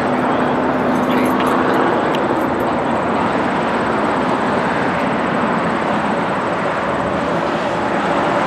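Snowbirds' Canadair CT-114 Tutor jets flying over after take-off: a steady jet roar that neither rises nor fades.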